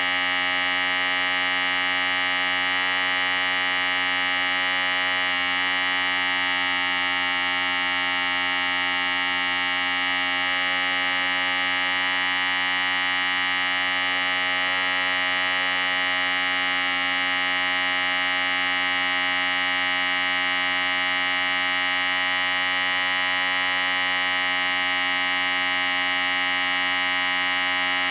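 Electric hair clippers running with a steady, unchanging buzz.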